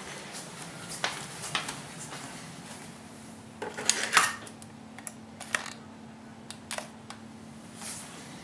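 Dogs' claws clicking and scrabbling on a hard floor as they chase a laser dot: scattered sharp clicks and light clinks, busiest about four seconds in.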